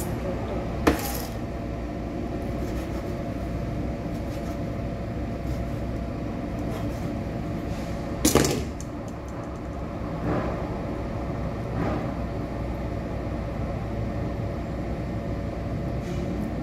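Steady low hum of a kitchen appliance, with two sharp knocks from kitchen utensils being handled: a short one about a second in and a louder one about eight seconds in.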